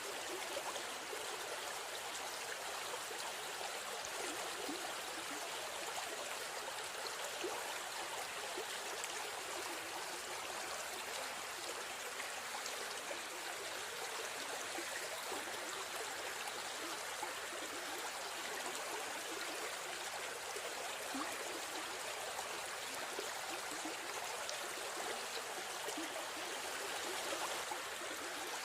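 River stream flowing steadily, a continuous rushing and trickling of water.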